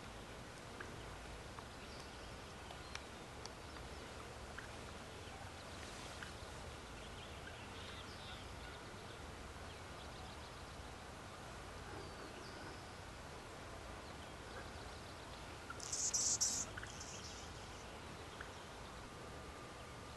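Quiet outdoor ambience with a steady hiss and scattered faint bird chirps and clicks. About sixteen seconds in, a short, loud, high-pitched rasping call.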